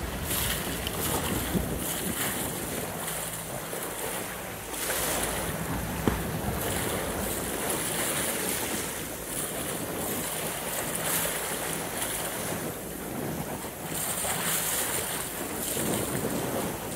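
Water rushing and splashing along the hull of a sailboat under way, swelling and easing every few seconds, with wind buffeting the microphone. A single short knock about six seconds in.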